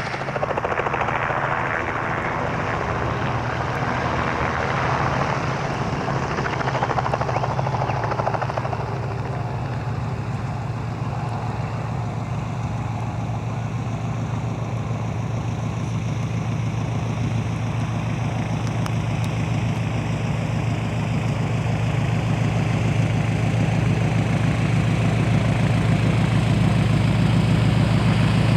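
Piston engine of a vintage propeller aircraft running steadily, a low even drone that grows gradually louder over the second half.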